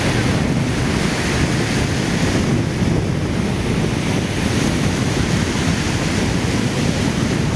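Ocean surf breaking and washing up a sand beach, swelling and easing as the waves come in, with wind buffeting the microphone.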